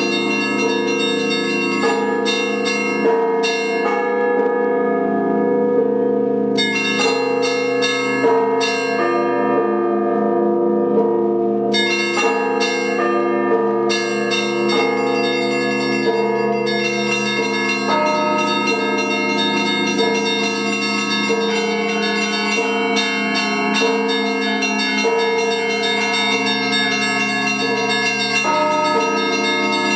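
Russian Orthodox church bells rung by one bell ringer: a dense, continuous pattern of bells of many pitches struck again and again. The small high bells fall silent twice for a few seconds while the larger bells keep ringing.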